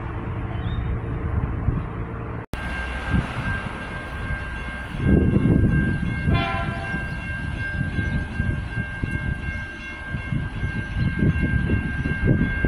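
A diesel railcar engine running, then, after a short break, a steady high warning tone from a railway level crossing that goes on to the end. About six seconds in a train horn gives a short blast, over an irregular low rumble.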